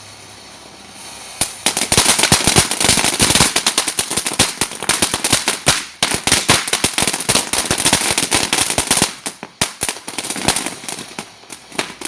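TNT Spider Web Fountain firework spraying with a steady hiss, then about a second and a half in breaking into loud, dense, rapid crackling pops. The crackle thins out into scattered cracks over the last few seconds.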